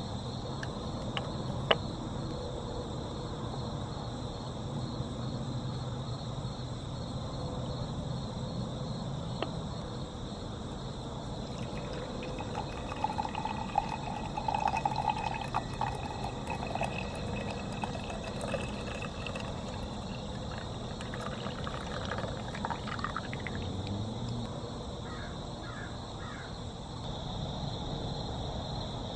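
Coffee poured from a stainless French press into a ceramic mug, a trickling splash lasting a few seconds near the middle, over a steady outdoor background hum. A single sharp tap comes shortly before, and a few short bird calls follow later.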